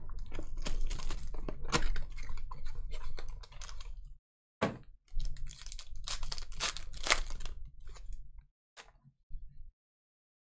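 Foil trading-card pack wrapper of 2020-21 Panini Donruss Choice basketball crinkling and tearing as it is pulled open by hand, a run of crisp crackles with a short break about four seconds in.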